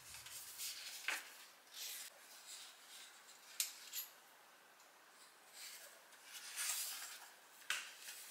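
Faint rustling of hands handling paper and small objects, with knit sleeves brushing, a few short swishes and a light click about three and a half seconds in.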